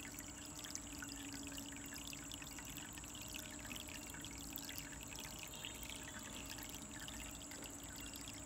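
Water from a small pump trickling and splashing into a goldfish tub: a steady, faint patter of water, with a faint steady hum beneath it.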